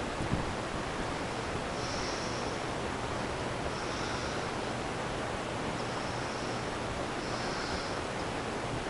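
52-inch ceiling fan running on high speed in downdraft mode: a steady rush of moving air, with a faint high whine coming and going every couple of seconds.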